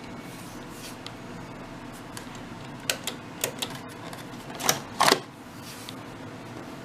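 Sharp mechanical clicks and clunks, about seven in all with the loudest cluster about five seconds in, as a stereo console's controls or deck are worked, over a faint steady hum.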